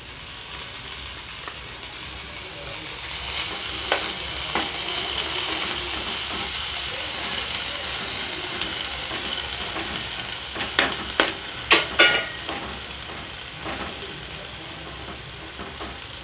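Freshly washed mint leaves sizzling in hot oil in a pan of fried tomatoes, lentils and red chillies, the hiss growing louder a few seconds in. A spoon stirs the pan, knocking and scraping against it several times, mostly past the middle.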